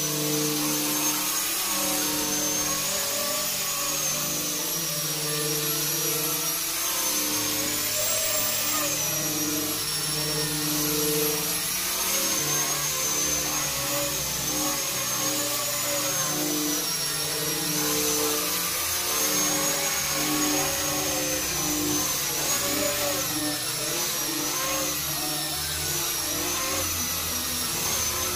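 Handheld angle grinder fitted with a sanding disc, running continuously while sanding a flat teak wood surface. Its high whine wavers up and down in pitch as the disc is pressed and moved over the wood.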